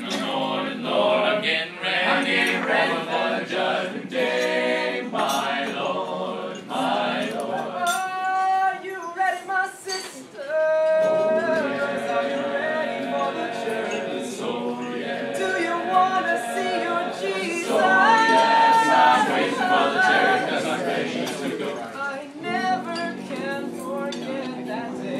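Male a cappella choir singing in close harmony, several voices together in sustained phrases.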